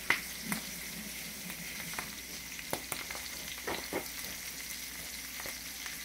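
Halved Brussels sprouts frying in a skillet of hot oil: a steady sizzling hiss with scattered sharp pops and clicks, the loudest just after the start and a cluster a little before the middle.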